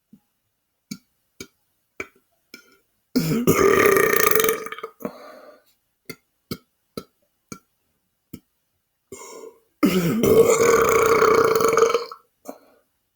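A man belching twice, two long drawn-out belches of about two seconds each, with short clicks about every half second in the pauses before them.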